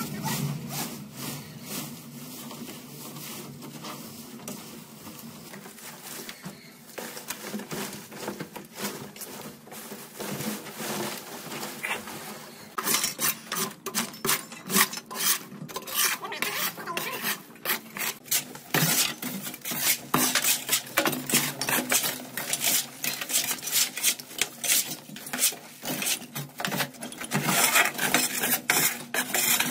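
Irregular scraping and clattering strokes, like hand work through debris, getting louder and busier about halfway through.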